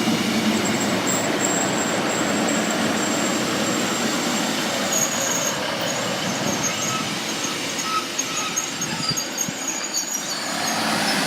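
Class 156 diesel multiple unit running into the platform: a steady rushing rail noise with thin, high-pitched wheel or brake squeals that come and go. The sound eases off slightly near the end.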